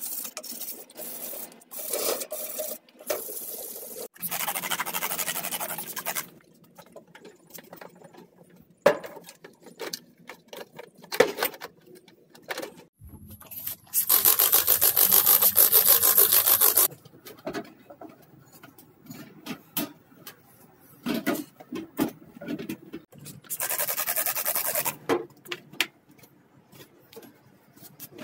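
Sandpaper rubbed by hand over the painted sheet-steel front of a tool chest, first in short strokes and then in a longer scrub. About halfway through, a spray bottle hisses out cleaner for about three seconds. Light knocks and rubs fall in between.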